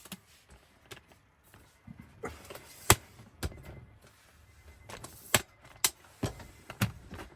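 A scattered series of sharp clicks and knocks, about half a dozen, the loudest about three seconds in: objects being handled.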